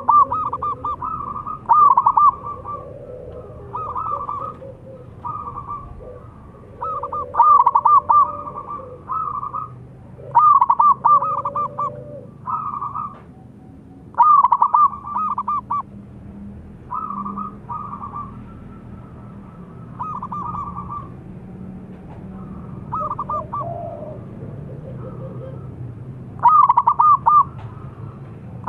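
Zebra doves (perkutut) cooing: about a dozen phrases of quick rolling coo notes, one every two to three seconds, some loud and close, others fainter.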